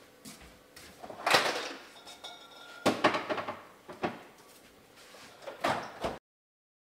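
Refrigerator door being opened and things handled inside it: a series of separate knocks and clunks with short rustling sweeps. The sound cuts off suddenly about six seconds in.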